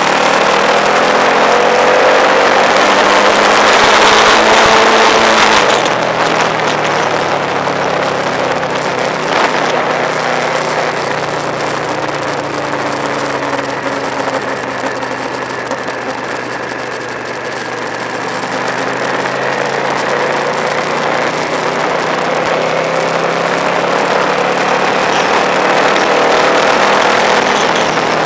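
Motorcycle engine running on the road, its pitch rising and falling as the revs change through the bends, with wind rushing over the microphone, loudest about four to six seconds in.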